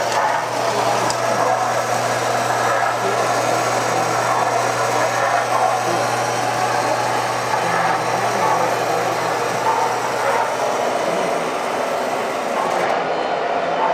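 O-gauge model trains running on the layout: a steady rolling rumble of wheels on the track, with a steady low hum that fades out about ten seconds in.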